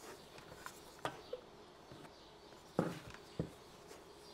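A few faint clicks and small knocks, one about a second in and two more near three seconds in, from fingers pressing the front-panel buttons of a soldering station to change its temperature setting.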